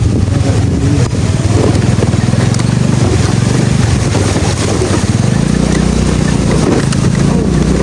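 Motor scooter engine running steadily under way, its low hum shifting slightly about five seconds in, with wind buffeting the microphone.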